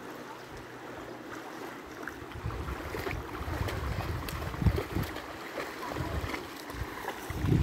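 Shallow sea water lapping in small waves at the shore, with wind rumbling on the microphone in gusts from about halfway through.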